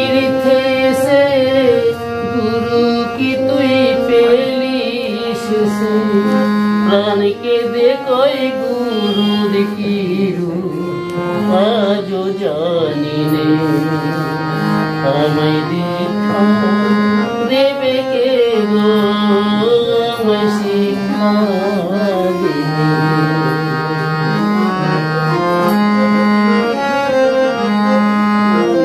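Harmonium and tabla playing a devotional guru song, the harmonium holding steady notes while a gliding, ornamented melody line wavers over them.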